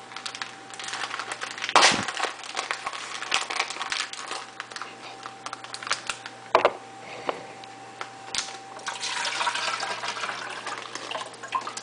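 Water being poured and splashed into a plastic specimen container as a fish is tipped in, with plastic crinkling and several sharp knocks of plastic. A longer rush of pouring comes near the end.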